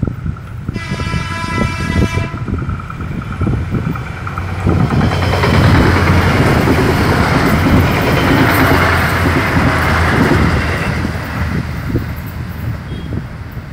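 PT KAI's KAIS 4 inspection train sounds one horn blast of about a second and a half as it approaches. About five seconds in, its running noise on the rails swells to a loud rumble and hiss while it passes close by, then fades as it moves away.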